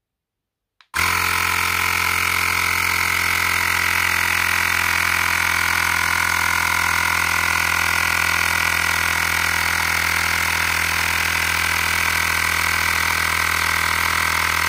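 Xiaomi Portable Electric Air Compressor 1S switching on about a second in and running steadily. Its small electric piston pump is inflating an electric scooter tyre under rising pressure.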